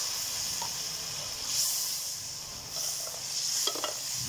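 Chicken and ground-spice masala sizzling in hot oil in a cooking pot, just after a splash of water has gone in to keep the spices from burning. The hiss swells twice, and a few sharp spoon clicks come near the end.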